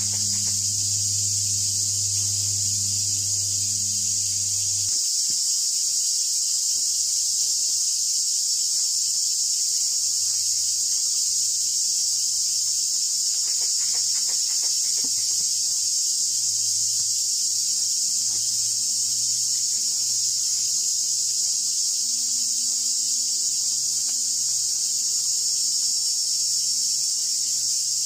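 A steady, high-pitched insect chorus buzzing without a break, with a faint low hum beneath it that drops away about five seconds in.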